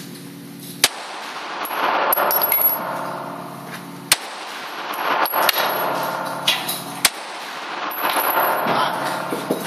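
Glock 17 9mm pistol fired three times, slow deliberate shots about three seconds apart, each sharp crack followed by echoing reverberation off the indoor range's walls.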